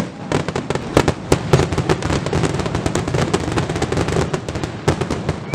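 Fireworks going off in rapid succession: dense crackling and popping from bursting shells, with louder bangs about a second in and near the end.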